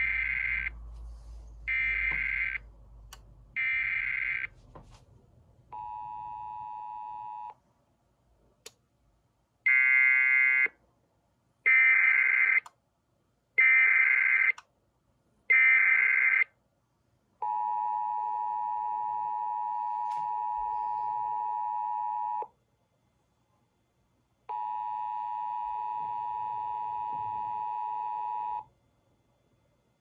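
Emergency Alert System tones from a Sage EAS ENDEC for a 911 telephone outage emergency (911TOE): three short screeching SAME header data bursts about a second apart, a brief steady two-note tone, then four more data bursts. These are followed by the steady two-note attention signal (853 and 960 Hz) held for about five seconds, and after a short gap again for about four seconds.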